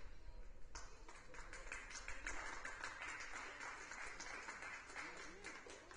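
Faint scattered hand clapping, starting about a second in and tailing off near the end, with faint distant voices near the end.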